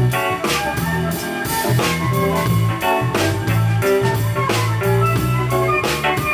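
A live jazz band playing: a bass holding a steady line of low notes, a drum kit keeping time, and keyboard chords above.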